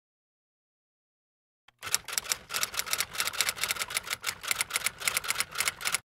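Typewriter typing sound effect: a rapid, steady run of keystroke clacks, about seven or eight a second, starting about two seconds in after near silence, as the on-screen title is typed out letter by letter.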